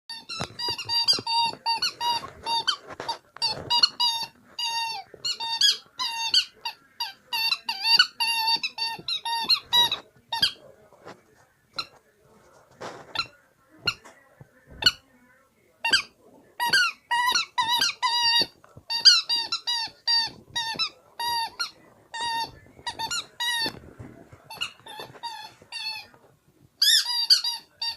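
Dog biting a squeaky rubber toy pig, squeezing out quick runs of short high squeaks, each bending slightly in pitch, with a sparser stretch of single squeaks in the middle.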